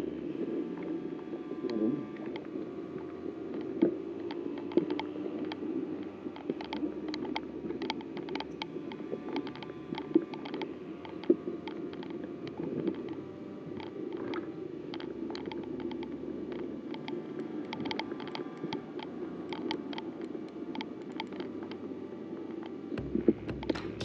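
Footsteps moving through undergrowth, with irregular small cracks and snaps of twigs and brush over a steady low rumble of movement and handling noise.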